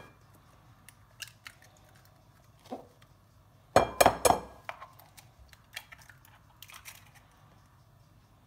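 Hen's eggs being cracked open by hand: a quick run of sharp shell taps about four seconds in, with lighter clicks and cracks of shell scattered around it.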